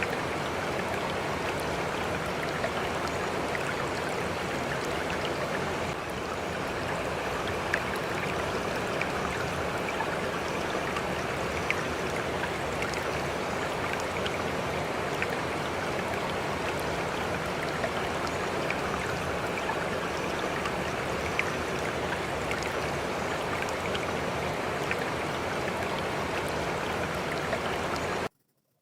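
Steady rushing noise like a flowing stream, with a few faint ticks, that cuts off abruptly near the end.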